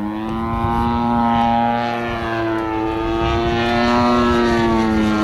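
Engine and propeller of a 35% scale Aeroworks Extra 260 radio-control aerobatic plane in flight, making a steady buzzing drone. It grows louder in the first second, and its pitch dips and rises slightly as the plane manoeuvres.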